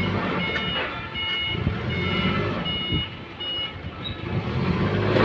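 Forklift's reversing alarm beeping, about five even beeps a little under a second apart, over the forklift's engine running; the beeps stop about two-thirds of the way through.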